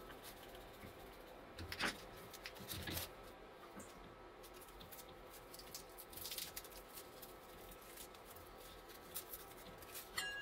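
Faint handling noises of work on a plastic tool housing: scattered light clicks and taps from a screwdriver fixing a strap, then a battery pack pressed into place. Two sharper knocks come about two and three seconds in, and a cluster of clicks just past the middle.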